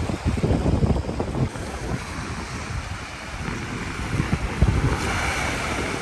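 Sea waves breaking on rocks and washing up a sandy shore, with a hissing wash of surf late on. Wind buffets the microphone in low, gusty rumbles throughout.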